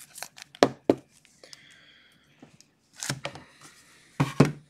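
Sharp knocks and clicks of clear plastic trading-card holders being handled on a table, with a soft rustle of foil card packs in between.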